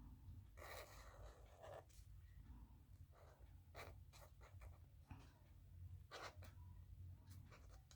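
Faint scratching of a writing tool lettering on a painted surface, in short irregular strokes, the longest about a second in. A steady low hum sits underneath.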